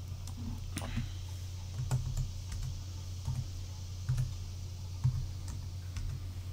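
Scattered keystrokes on a computer keyboard, about one tap a second at irregular spacing, over a steady low hum.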